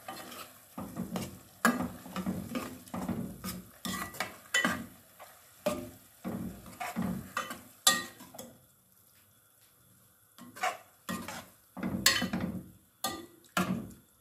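Steel ladle scraping and knocking against a metal pot as minced chicken in oil and yogurt is stirred and mixed, in quick repeated strokes. The stirring pauses for about two seconds just past the middle, then starts again.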